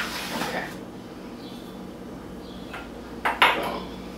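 Hands mixing flour into bread dough in a mixing bowl: a soft rustle at first, then one sharp knock a little over three seconds in, over a steady low hum.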